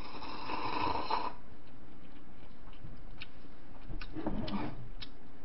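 A person slurping a sip from a small cup, one noisy sip lasting about a second, followed by a few faint clicks.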